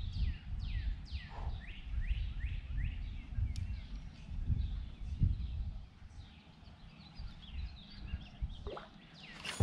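Birds chirping in runs of quick down-slurred notes, over the low, gusty rumble of wind on the microphone that eases off about six seconds in.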